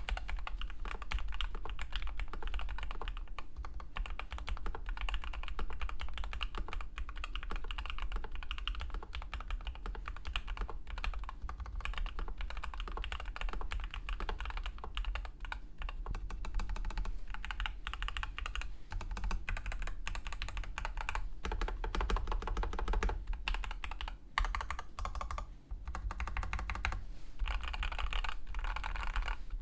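Rapid, continuous typing on a mechanical keyboard with stock, factory-lubed Gateron Oil King linear switches, the key presses and bottom-outs running together, with a brief pause about three-quarters of the way through.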